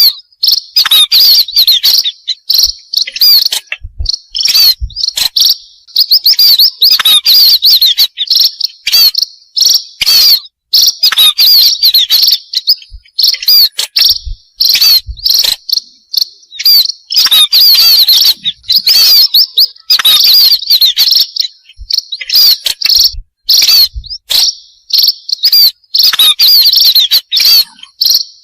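Burung pipit (munias) calling as a flock, many rapid high chirps played loud as a lure call. The chirping comes in bursts of a second or two with short breaks between them.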